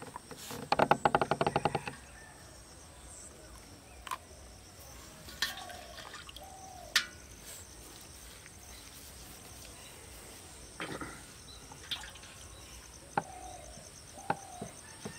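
A freshly caught fish thrashing in a metal pot of water: a quick burst of rapid splashing slaps lasting about a second, near the start. After that come a few scattered small clicks and short chirps.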